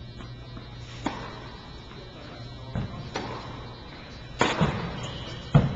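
Tennis serve on a hard court: a few light knocks of the ball before the serve, then the racket striking the ball about four and a half seconds in, followed about a second later by the loudest sharp thump. A steady low hum runs underneath.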